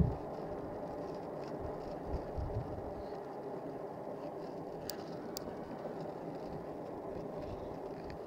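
Steady running noise of a bike underway, a droning hum with wind buffeting the microphone in low gusts for the first few seconds. Two sharp clicks about five seconds in.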